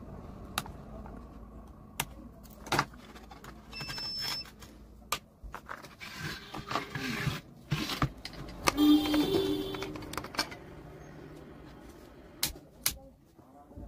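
Handling noise at a repair bench: scattered sharp clicks, taps and short rustles of tools and parts on an amplifier circuit board, busiest in the middle, over a faint low hum that fades out partway through.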